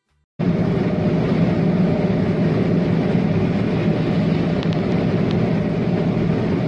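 Steady running noise of a motor vehicle, a low hum over a constant rush, cutting in abruptly about half a second in. A few faint high ticks come near the middle.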